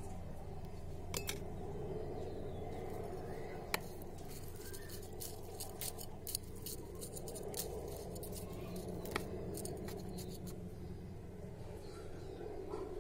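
Scattered sharp clicks and crackles of a metal spoon and a knife working soil strewn with broken eggshells in a plastic plant pot, busiest in the middle. Under them runs a steady low background rumble.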